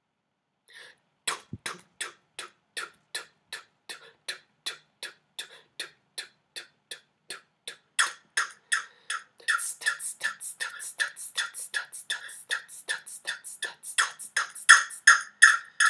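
Beatboxed drum sounds made with the mouth, in a steady beat of about three strokes a second, being recorded into a loop. From about eight seconds in, the recorded beat loops back through the speakers while a brighter beatboxed hi-hat layer is added on top, making the beat denser and louder.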